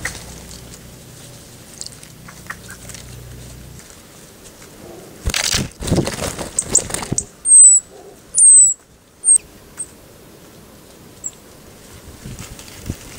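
A small bird's wings flapping close by in a brief flurry about five seconds in. Right after it come two loud, high, thin calls, each sliding slightly down in pitch, and then a few short high notes.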